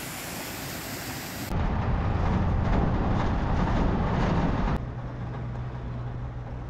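A motor vehicle's engine and road noise while driving, in three cut-together pieces: a steady hiss, then a louder low rumble from about a second and a half in, then from about five seconds in a steadier engine hum with a low drone.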